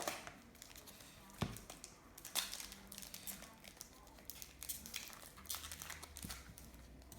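Foil trading-card pack being torn open and crinkled by hand, a run of short sharp crackles and rustles, with cards shuffled between the fingers.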